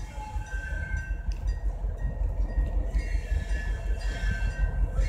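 Passenger train hauled by an EMD J26CW-AC diesel-electric locomotive approaching slowly. Its low engine rumble grows gradually louder, with a few faint, thin high-pitched squeals from the train.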